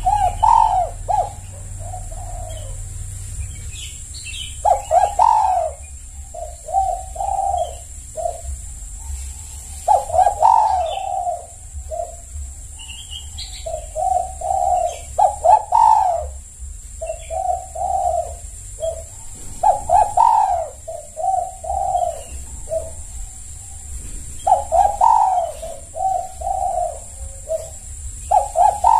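Spotted dove (tekukur) cooing: repeated phrases of several short, low coo notes, a new phrase every few seconds.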